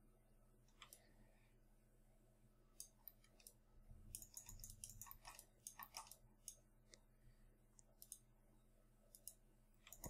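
Near silence with faint, irregular computer mouse clicks, a dozen or so, over a faint low electrical hum.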